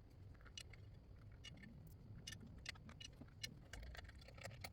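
Faint, irregular metallic clicks of a hand wrench tightening the small rotor retaining screws on a disc brake hub.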